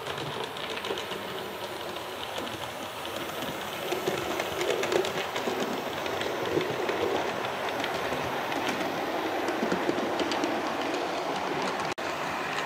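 OO gauge model train running on sectional track: a steady rolling rumble with rapid clicking of wheels over the rail joints, growing louder about four seconds in as the coaches pass. A brief break near the end.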